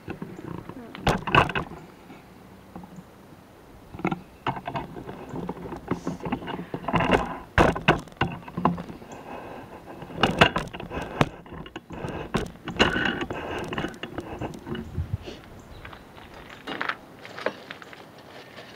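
Irregular knocks, clicks and rattles of metal rain-gutter brackets being handled and fitted onto a gutter, with the sharpest knocks about a second in and about ten seconds in.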